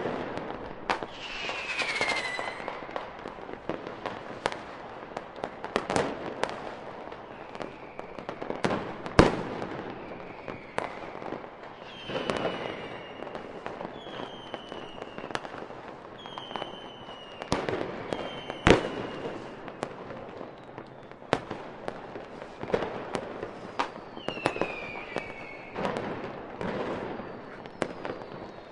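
Fireworks display: a run of sharp bangs, the loudest about nine and nineteen seconds in. Whistling shells fall in pitch about two seconds in, several times between twelve and eighteen seconds, and again near the end.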